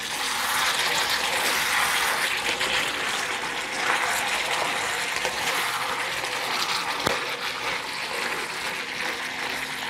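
Pork, onion and carrot in a thick gochujang sauce sizzling in a hot cast-iron pan while being stir-fried with wooden spatulas, with a few clicks of the spatulas against the pan.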